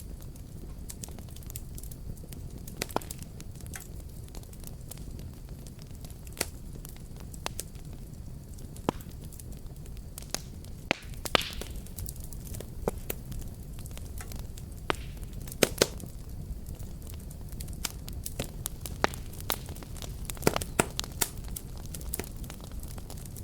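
Wood fire burning with a steady low rumble and irregular sharp crackles and pops.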